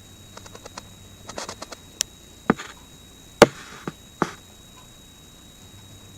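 A run of light taps and clicks, then five sharper knocks on something hard over about two seconds, irregularly spaced.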